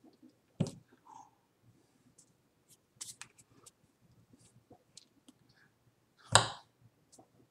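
Hands slapping and brushing together while signing in American Sign Language, making scattered light clicks and taps. Two sharper slaps stand out, one about half a second in and a louder one near the end.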